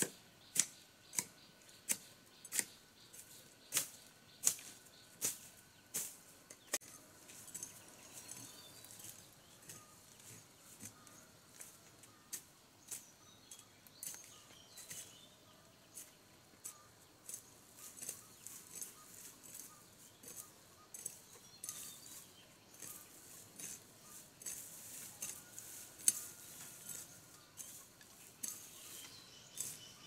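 Rhythmic strokes of a hand tool hacking and scraping into grass and soil while clearing ground, sharp and regular, about one every 0.6 s, for the first several seconds, then lighter and more scattered.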